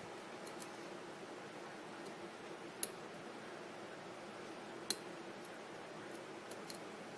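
Lock pick and tension tool working the pins of a CX-5 high-security lock, giving a few faint ticks and two sharper metallic clicks about three and five seconds in, while the pins are picked toward a false set.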